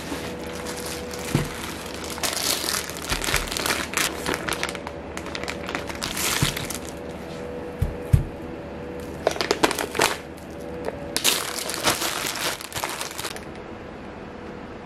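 Plastic produce bags crinkling in bursts as groceries are handled and unpacked, with a few dull knocks as items are set down on a wooden table.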